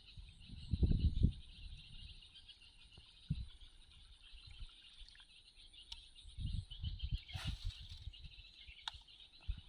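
Steady high chirring chorus of insects and birds, with irregular low rumbles and thumps, the loudest about a second in. A short hiss comes about seven and a half seconds in, followed by a faint click.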